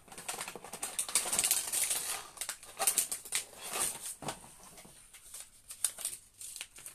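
Cardboard box being handled close to the microphone: dense rustling and scraping with quick taps for the first four seconds or so, then scattered clicks.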